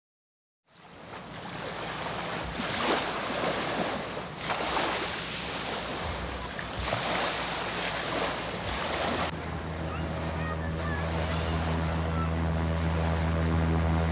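Wind buffeting the microphone over lapping water, swelling in several gusts. About nine seconds in, the wind noise drops and a low, steady music drone comes in.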